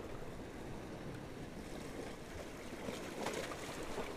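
Small sea waves washing against the boulders of a breakwater, with light wind on the microphone; one wash is slightly louder about three seconds in.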